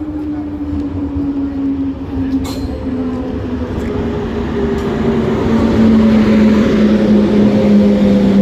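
A train approaching and getting steadily louder, with a droning tone that slowly drops in pitch as it comes closer.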